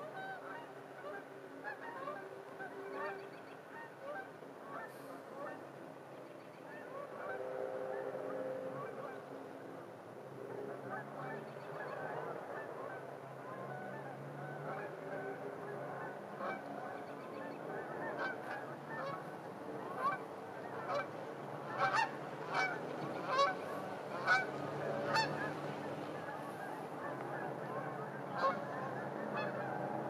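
A flock of geese honking, many calls overlapping throughout, with a run of louder honks about two-thirds of the way through.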